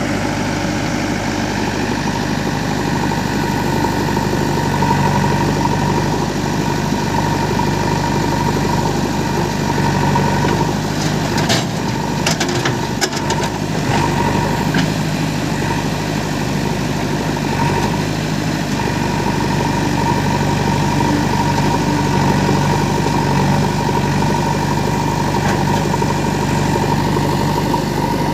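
Diesel engines of a JCB 3DX backhoe loader and a Swaraj 735 tractor running steadily. A short run of clatters and knocks comes about halfway through.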